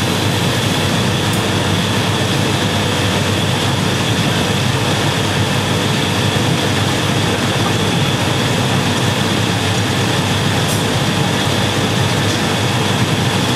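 Steady roar of a glassblowing studio's gas-fired furnaces and glory hole burners with their blowers: an even, unbroken noise with a faint steady hum in it.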